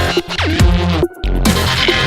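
Electronic dubstep music with heavy bass notes and a falling pitch sweep. The music cuts out briefly about a second in.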